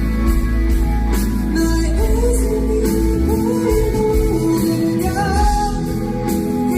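Live concert music: a male vocalist singing long, gliding notes of a ballad over a band with bass, guitar and drums.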